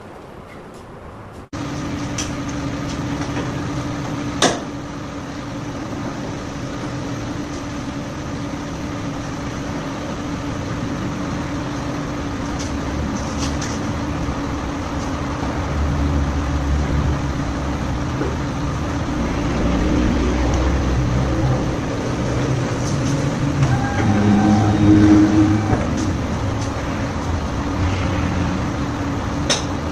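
Steady vehicle engine noise with a constant hum, which starts suddenly about a second and a half in and swells louder in the second half. There is a single sharp knock about four and a half seconds in.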